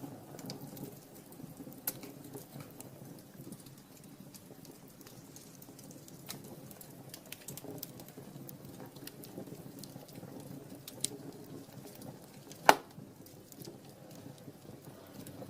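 Wood fire burning in a fireplace: a steady low rustle of flames with scattered small crackles and one sharp, loud pop near the end.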